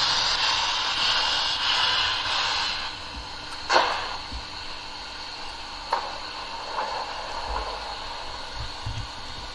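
Sound decoder of a model steam locomotive playing through its small speaker: a hiss of steam that fades about three seconds in, then quieter running with two sharp clanks.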